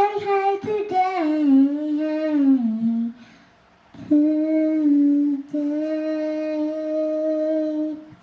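Young girl singing into a toy microphone without clear words: a phrase that slides down in pitch, a short pause, then two long steady held notes.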